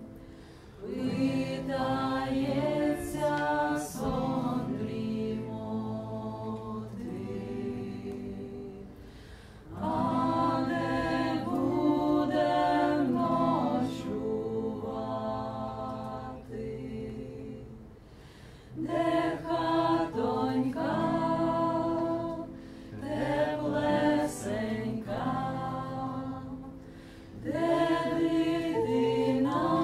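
Several voices singing a slow song in Ukrainian together in harmony, in long phrases that each swell and then die back before the next one begins, about every nine seconds.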